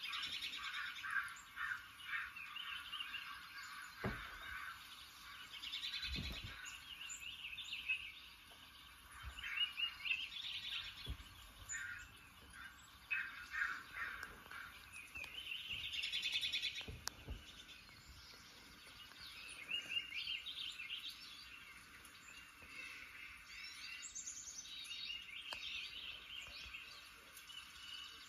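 Birds chirping and singing in repeated short phrases, played through a television's speakers from a bird video. A few soft low thumps come in between.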